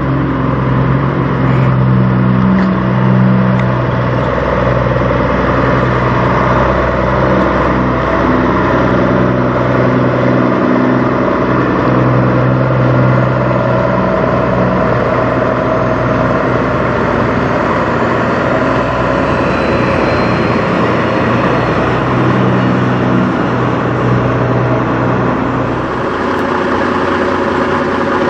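Kenworth semi truck's diesel engine running as it pulls a tanker trailer across the lot toward the camera, then settling to an idle near the end.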